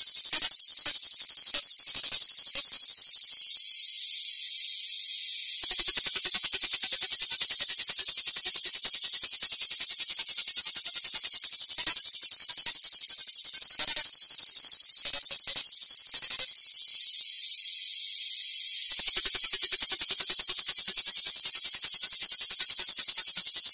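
A cicada singing: a loud, high, rapidly pulsing buzz. Twice it eases off for a couple of seconds and then abruptly comes back at full strength.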